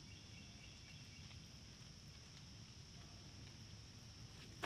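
Faint steady high-pitched drone of insects, like crickets, in a quiet outdoor background. A single sharp click comes right at the end.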